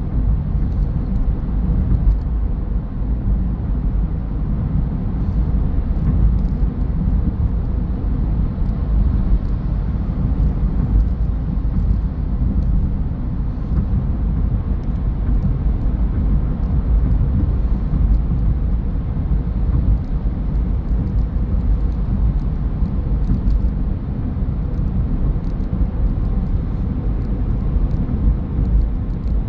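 Steady low rumble of a car on the move: road and engine noise, with no changes in pace.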